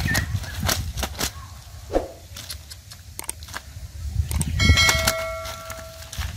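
Water hyacinth being pulled and pushed aside by hand over wet mud, with irregular rustling, snapping and squelching. About two thirds of the way in there is a knock followed by a metallic ring that lasts about a second and a half.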